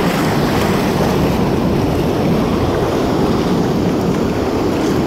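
Breaking surf and foam washing up a sand beach, a steady rush of water.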